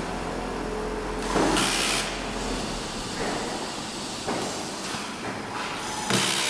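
An oxygen concentrator running on test gives two short hisses about four and a half seconds apart, over a steady background noise. The hisses are the kind of venting puff its valves give as they switch.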